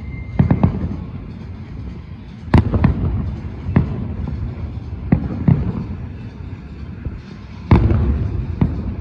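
Aerial fireworks bursting: a series of sharp bangs, one every second or so, with a low rumbling echo between them; the loudest bang comes near the end.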